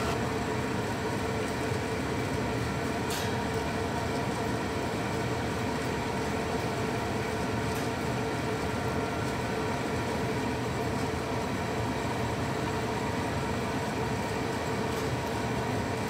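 Gas furnace running on high fire: a steady mechanical hum of its motors and burners with a faint, even tone over it.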